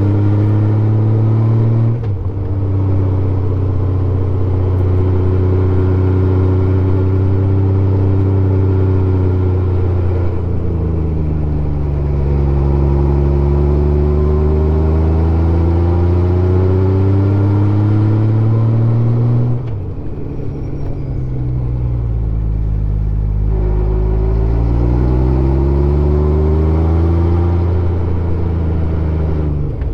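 Honda Gold Wing 1500's flat-six engine pulling the bike up a winding mountain road. The revs climb and fall with throttle and gear changes, dropping sharply about two seconds in and again near twenty seconds in.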